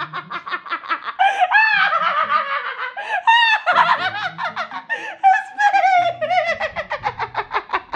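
A woman laughing hard in rapid, very high-pitched pulses, several a second, with falling glides in pitch, breaking off just before the end.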